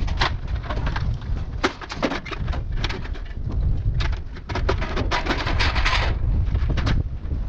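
Irregular cracking and snapping of wooden branches over a steady low rumble, with a dense stretch of crackling about five seconds in.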